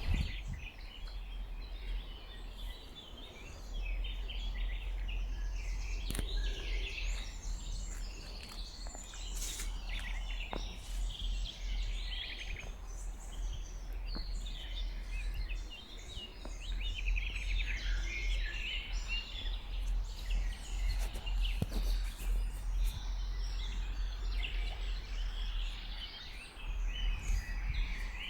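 A chorus of many small songbirds singing and chirping at once, with overlapping trills and twitters, over a steady low rumble and a few faint clicks.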